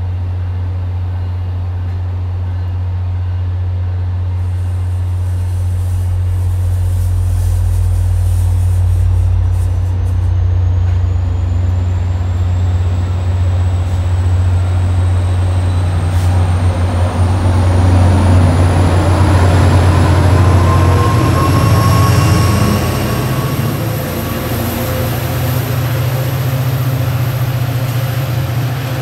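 MBTA commuter rail train rolling past on the rails over a steady low diesel engine drone. Through the second half a thin high whine rises in pitch, and near the end the drone shifts higher as a diesel locomotive approaches.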